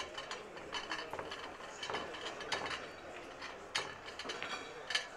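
Pool balls clacking and knocking against one another in irregular bursts of clicks as they are gathered and packed into a rack.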